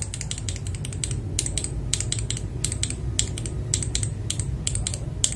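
Typing on a mechanical keyboard with Akko CS Matcha Green switches, a fast, irregular run of key clacks, described as deep and warm, over a steady low hum.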